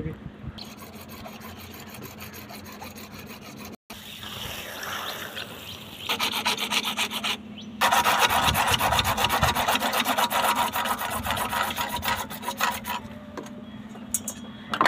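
A hacksaw blade sawing through PVC pipe by hand in quick, even back-and-forth strokes, louder for several seconds in the second half.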